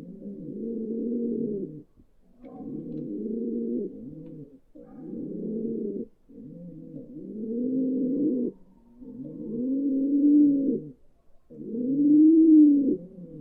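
Pigeons cooing: a run of low, rounded coos of a second or so each, one after another with short pauses between them, getting louder near the end.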